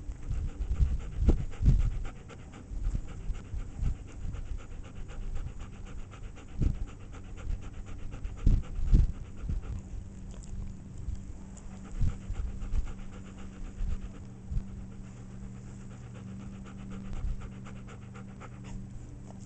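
Dog panting close to the microphone, rapid and regular, with several low thumps, the loudest about a second in and again about nine seconds in.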